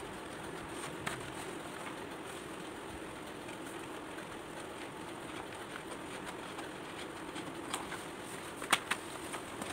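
Kitchen knife slitting along the fold of a large sheet of chart paper, a soft paper rasp over a steady background hum. A few sharp clicks of paper and knife being handled, the loudest near the end.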